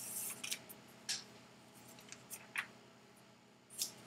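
Quiet room tone with a low steady hum, broken by about five short, faint clicks and rustles.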